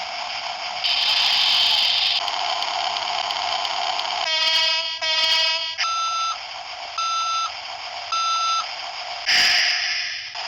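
Caterpillar (Cat) phone ringtone built from heavy-machinery sounds: a running engine with bursts of hiss, two horn blasts, then three backing-up beeps about a second apart.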